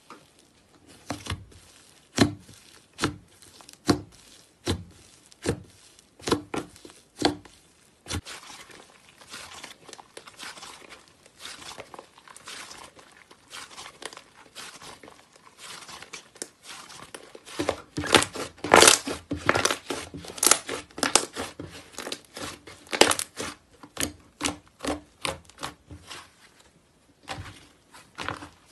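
Thick, opaque slime being squeezed, poked and stretched by hand, making sharp pops. At first the pops come about once every second. Then they give way to quieter crackling, which grows into loud, dense crackling and popping about two-thirds of the way through.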